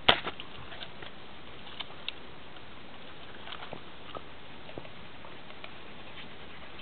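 A dog gnawing and mouthing beside a metal gate, heard as a sharp click at the start and then faint, scattered ticks and scrapes over a steady hiss.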